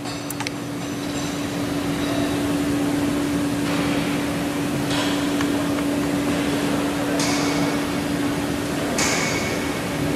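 Steady machine hum holding one constant tone under a hiss that swells a few times, with a few light metallic clicks near the start as the dial indicator's arm and clamp are handled.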